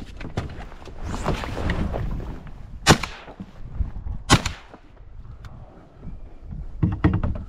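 Shotgun fired twice, the shots about a second and a half apart, each with a short echo.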